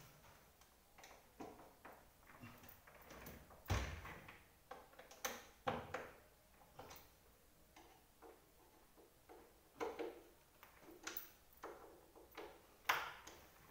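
A soft grass broom brushing dust off a fabric office chair in short, irregular strokes, with a few louder knocks and bumps against the chair, the strongest about four seconds in.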